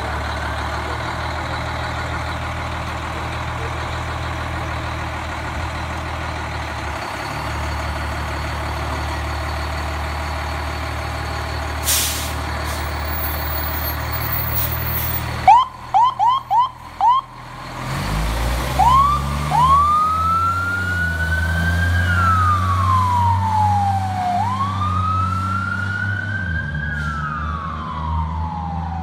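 Fire engine's diesel engine running steadily, then four quick siren chirps about halfway through. The engine then pulls away with its siren wailing slowly up and down, twice.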